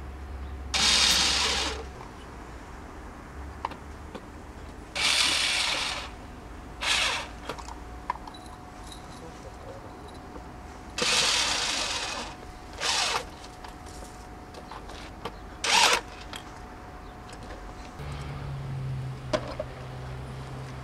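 Power drill run in six short bursts, each under about a second, as seats are fixed in place. A low steady hum comes in near the end.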